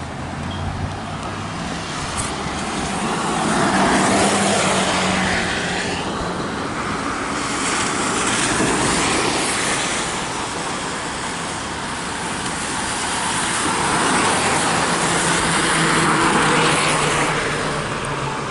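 Cars passing on a rain-wet road, their tyres hissing in several swells that rise and fade as each goes by.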